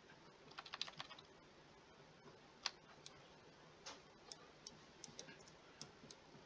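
Faint, scattered clicks of computer input while sculpting: a quick run of clicks about half a second in, then single clicks every half second or so.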